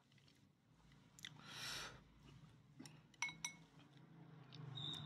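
Faint clicks and clinks of chopsticks against a bowl as a slice of boiled pork is picked up, the two sharpest with a short ring just after three seconds in. A brief soft rustle comes about a second and a half in.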